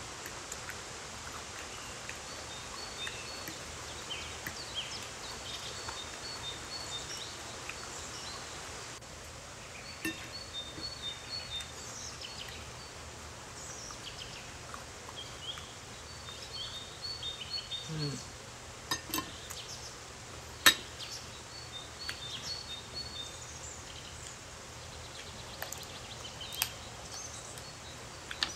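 Someone eating soft guacamole: chewing and mouth sounds, with a fork scraping and clinking on the plate and one sharp clink about twenty seconds in. Underneath run a steady hiss and repeated high bird chirps.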